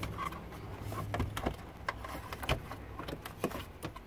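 Scattered plastic clicks and knocks from the air-conditioning vent assembly being worked free and lifted out of a 2007 Acura TL's dashboard, the sharpest knock about two and a half seconds in. A low steady hum runs underneath.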